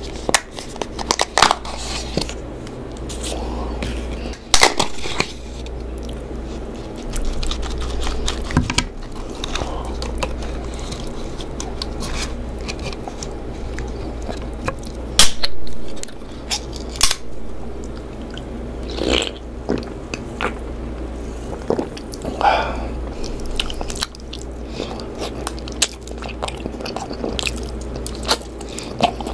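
A person eating chicken curry close to the microphone, chewing and biting, with sharp clicks and knocks scattered throughout, over a steady low hum.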